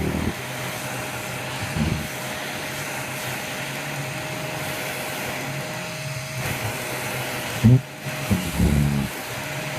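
Vacuum cleaner running with a steady whine and hiss, broken by short, low, buzzing fart-like sputters: a brief one about two seconds in and a louder cluster near the end.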